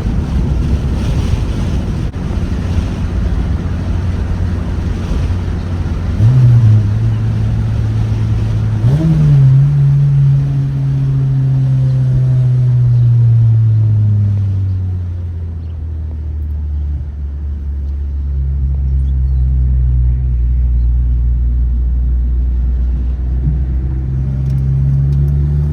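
2006 Civic Si's 2.0-litre four-cylinder engine running while the car is driven, its pitch jumping up sharply twice, about six and nine seconds in, then falling away slowly to a low steady note before climbing again near the end.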